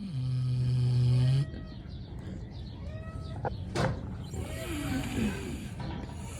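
Kunekune pig snoring: a loud, low snore about a second and a half long at the start, then a softer, breathier snore near the end. Two sharp clicks come in between.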